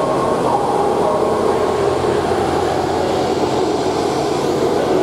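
Diesel multiple unit (British Rail Class 158) idling at the platform: a steady, loud engine drone.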